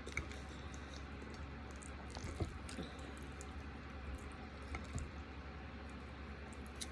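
Faint, scattered wet clicks and smacks of someone eating creamy chicken Alfredo, over a low steady hum.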